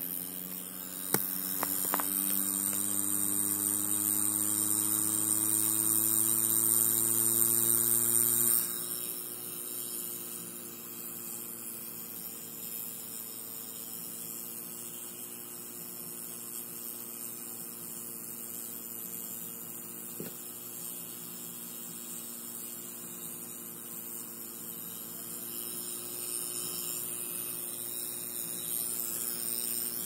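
Brand-new Toshiba N300 6TB hard drive running with a steady hum of several tones that creep slightly up in pitch. A louder, hissier layer over the first eight seconds cuts off suddenly, and there are a few short clicks near the start and once about twenty seconds in. It is the 'bad noise' of a faulty drive that Windows cannot see and that runs hotter than normal.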